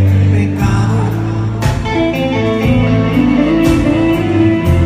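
Rock band playing live: electric guitars and electric bass over a drum kit, with repeated cymbal hits and sustained low bass notes.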